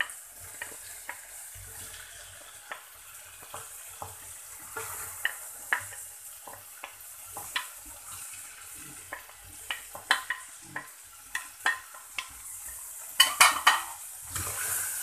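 Wooden spoon scraping and tapping diced vegetables off a plate into a saucepan, with the oil of frying chicken and onion sizzling underneath. A quick run of sharper knocks near the end.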